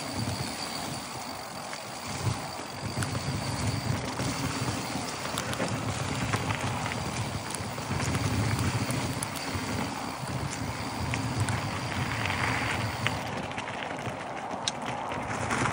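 Mountain bike rolling fast down a dry dirt trail: knobby tyres crunching over dirt and leaves, the bike rattling over bumps, and wind rumbling on the handlebar-mounted microphone. Near the end the ticks and crunches get sharper as it rolls onto gravel.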